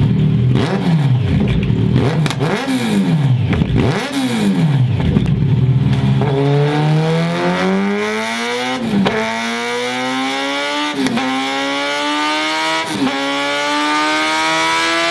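Kawasaki Z900's 948 cc inline-four running through a Scorpion full exhaust system on a dyno. For about six seconds it takes several quick throttle blips, the revs rising and falling. Then comes a long full-throttle pull, the revs climbing steadily and broken by three short sharp cracks.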